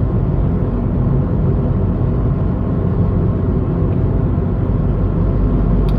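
Steady in-cabin drone of a Tata Tigor BS6 cruising in fifth gear at about 1500 rpm: the low hum of its three-cylinder petrol engine mixed with road noise, with the AC off.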